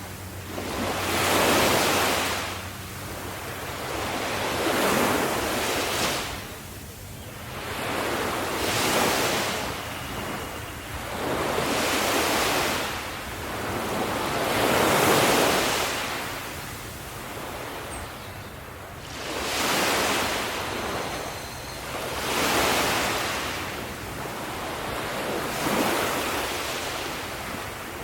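Ocean waves breaking and washing in, each surge swelling and fading about every three to four seconds.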